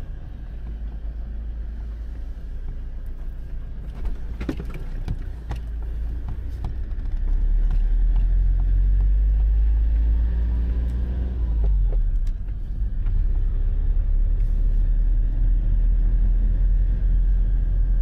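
Motorhome cab interior while driving slowly: a steady low engine and road rumble that grows louder about seven seconds in, with a few sharp knocks and rattles about four to five seconds in.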